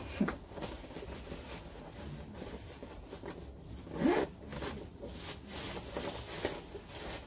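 A bag's zipper being worked, with a black plastic bin bag crinkling and rustling around it. Two short rising cries cut in, one just at the start and a louder one about four seconds in.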